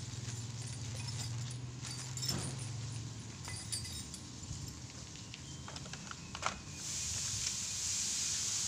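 Handling noise from unpacking a new chainsaw: plastic packaging rustling and small clicks and clinks of plastic and metal parts. A steady hiss starts near the end.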